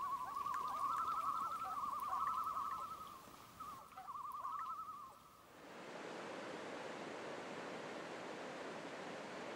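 A common loon giving its wavering tremolo call several times over, then, about five and a half seconds in, a cut to the steady rush of whitewater through a rocky river gorge.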